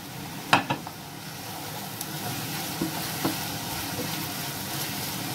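Thin-cut carrots sizzling in hot oil with powdered sugar in a saucepan as a wooden spatula stirs them. There is a sharp knock about half a second in and a few lighter clicks of the spatula on the pan.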